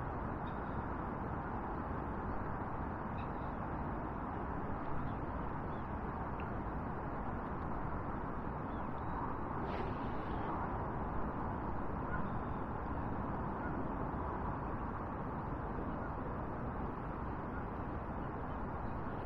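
Steady outdoor ambience: a rushing hiss with a low rumble, a few faint distant bird calls, and one short click about halfway through.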